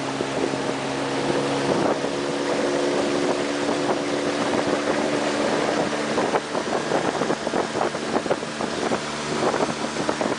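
A motorboat's engine runs at a steady pitch, with water and wind noise around it. About six seconds in, the engine's hum weakens under rougher, buffeting noise.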